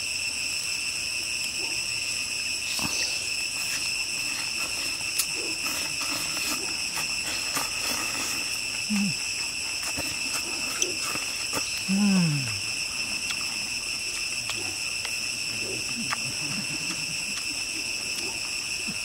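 Steady high-pitched insect drone of several even tones, unbroken throughout. A person makes a short low hum about nine seconds in and a longer one falling in pitch about twelve seconds in.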